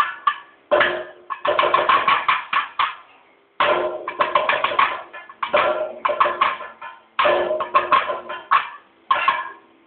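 Kathakali chenda drum beaten with sticks in rapid flurries of strokes, about six bursts of a second or so with short pauses between. A steady ringing tone carries under the strokes.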